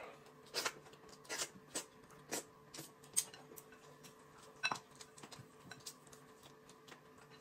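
Eating sounds: a handful of faint, short smacks and clicks, from chewing chicken and from chopsticks on a bowl of noodles, scattered a second or so apart.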